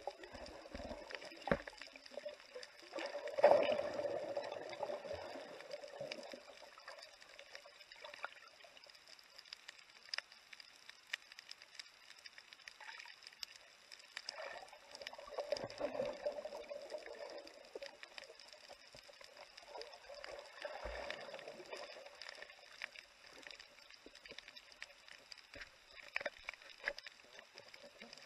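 Underwater sound picked up by a camera at the reef: water rushing and gurgling past in three swells, the loudest about three and a half seconds in, with scattered faint clicks and crackles between.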